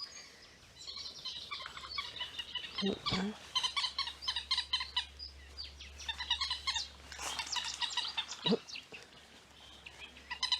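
Small birds singing in the reeds: fast chattering runs of rapidly repeated high notes, coming in several bursts, with two brief low falling calls between them.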